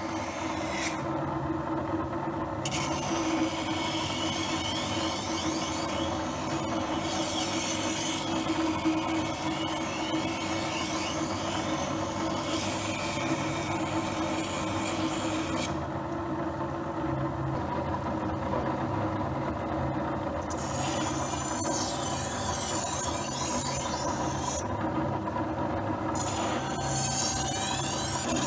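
Dick SM-111 electric knife sharpening machine running with a steady motor hum while a knife blade is ground against its wheel. The grinding comes in long passes that stop briefly near the start, for several seconds past the middle, and once more near the end.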